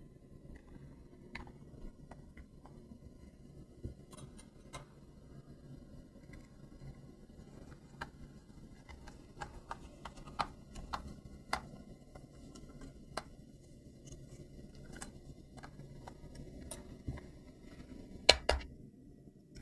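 Scattered light clicks and taps at irregular times over a faint low hum, the sound of hands handling a plastic toy and its packaging, with two louder clicks near the end.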